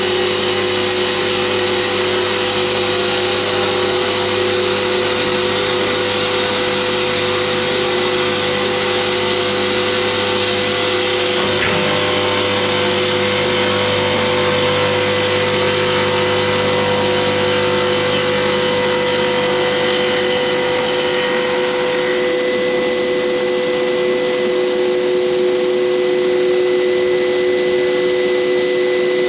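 CNC stone polishing machine running: a steady motor drone with a constant whine over a noisy hiss. The low hum drops away about two-thirds of the way through.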